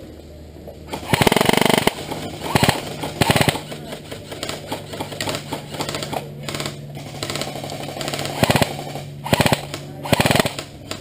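Airsoft gun firing in rapid full-auto bursts: one burst of about a second, then several shorter bursts spread through the rest of the stretch.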